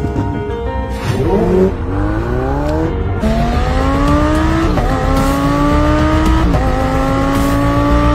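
Ferrari supercar's 3.9-litre V8 accelerating hard, its note rising with the revs and dropping back at each quick upshift, several shifts about a second and a half apart. Background music plays underneath.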